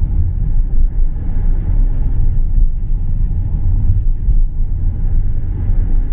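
A car being driven along a street, heard from inside the cabin as a steady low rumble of engine and road noise.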